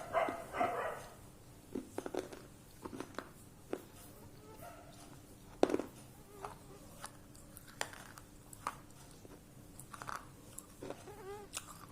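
A person chewing and biting into something hard and brittle, with sharp, irregular crunches, the loudest one just before the middle.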